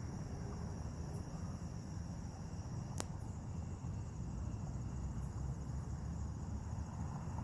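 Crickets chirping steadily over a low rumble, with one sharp click about three seconds in.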